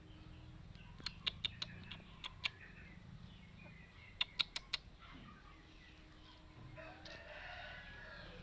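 Aseel rooster crowing near the end, one call of about a second and a half. Earlier come two quick runs of sharp clicks or taps.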